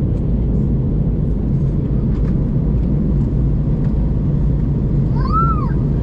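Steady low roar of an Airbus A321's cabin in flight: engine and airflow noise heard from a window seat. Near the end a brief high tone rises and falls.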